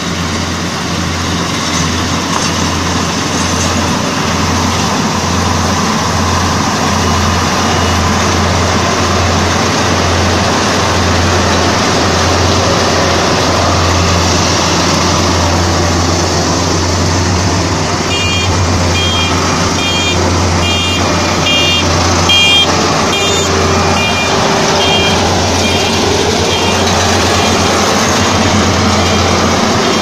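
GY4LZ-1.0 crawler combine harvester running at working speed while harvesting wheat: a loud, steady engine drone with the rushing noise of the threshing machinery. A little past halfway a reversing alarm starts beeping about twice a second, then grows fainter.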